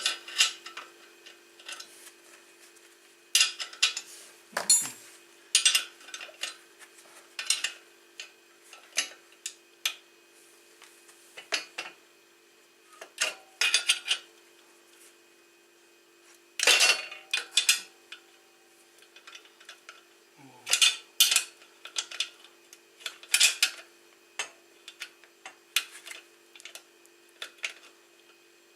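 Irregular metallic clinks and clanks of hand tools and wrenches working on a motorcycle's exhaust fittings and bolts, with a faint steady hum underneath.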